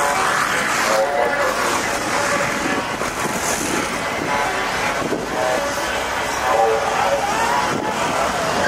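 Steady vehicle noise from cars around a parking lot, mixed with people talking.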